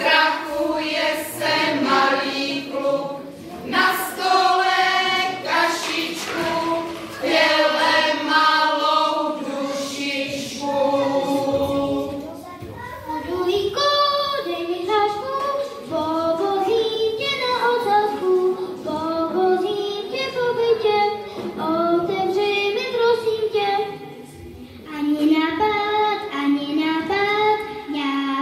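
Children singing a song, amplified through a microphone. The voices sound like a group at first, and from about twelve seconds in a single child's voice carries the melody.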